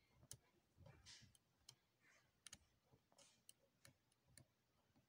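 Faint, irregular clicks and soft scrapes of a tool working old, gunky grease out of a stand mixer's gear housing.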